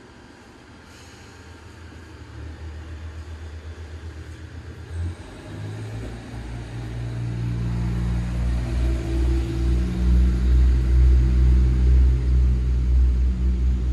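A low engine rumble with a steady hum, growing louder through most of the clip and strongest near the end.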